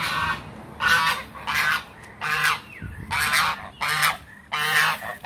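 White domestic goose honking repeatedly, a series of about six short, loud honks while it is being fed bread.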